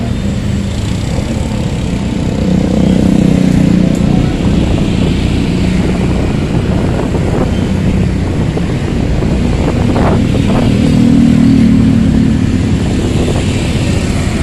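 Motorcycle and scooter engines running in street traffic, heard from a moving motorbike. A steady engine drone swells a couple of times.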